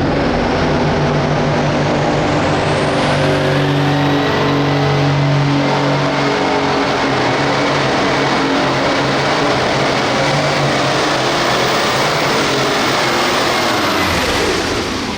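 Hot farm pulling tractor's turbocharged diesel engine running hard at high revs through a pull, with a high whistle over the engine, the sound dropping off near the end.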